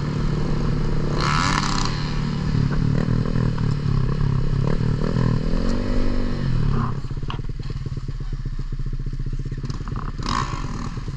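Dirt bike engines revving, pitch rising and falling repeatedly, then settling to a lower, steadier running after about seven seconds. Two brief hissing bursts, one near the start and one near the end.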